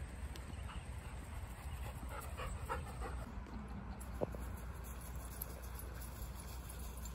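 Dogs panting and moving about, faint, over a steady low rumble.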